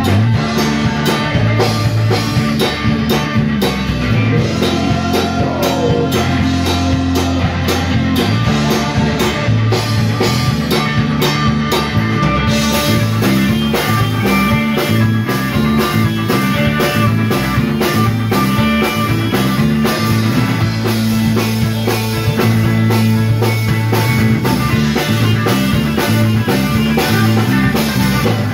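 Live rock band playing an instrumental passage: electric bass, guitar and banjo over a drum kit, with a steady driving beat. The sound grows brighter about halfway through.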